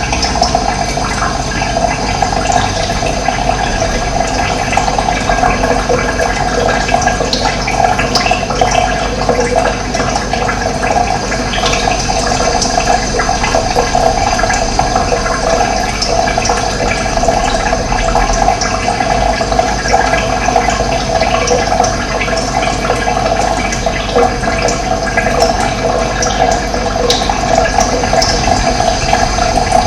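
Running water flowing steadily, an even, unbroken splashing noise.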